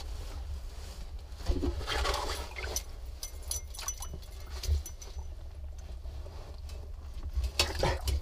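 Handling noise from a body-mounted camera: clothing rustling and gear scraping and knocking against a concrete ditch wall during a climb down, over a low rumble, with short louder scuffs about two seconds in and near the end.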